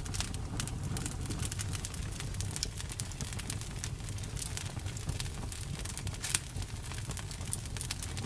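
Campfire crackling: a dense, irregular run of sharp pops and snaps over a steady low rumble of the burning fire.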